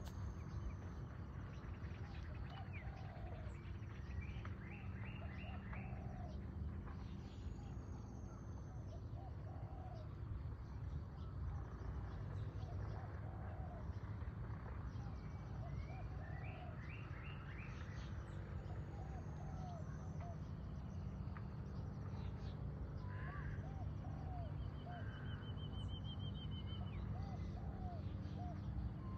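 Birds calling outdoors: a short arched call note repeats every second or two, with quick bursts of higher notes, thin high whistles and a brief trill near the end, over a steady low hum.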